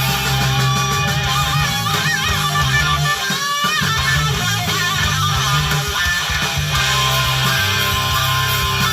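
Background music with electric guitar: a lead line bends in pitch over a steady bass, with a brief break about three and a half seconds in.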